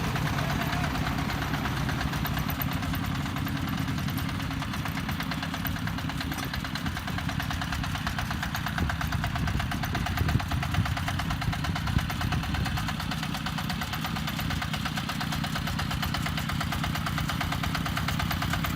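Diesel engine of a self-loading concrete mixer running steadily with a fast, even beat, with a few louder knocks about halfway through.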